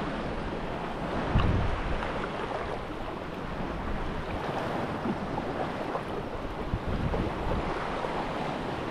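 Wind buffeting the microphone over small waves washing on a shallow sandy shore, with a stronger gust about a second and a half in.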